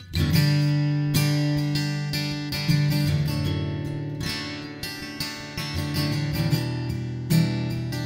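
Acoustic guitar strumming the instrumental intro of a country song, chords ringing between strums.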